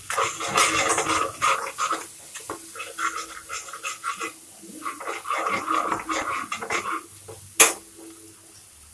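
A spoon stirring and scraping thick masala paste around a non-stick kadhai as it fries, in quick repeated strokes with a short pause in the middle. A single sharp knock comes about seven and a half seconds in.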